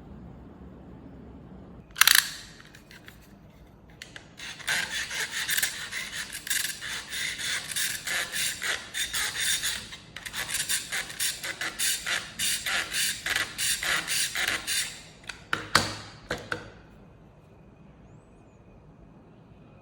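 A sharp click, then a long run of quick scraping strokes, about two to three a second, with another sharp click near the end of the run.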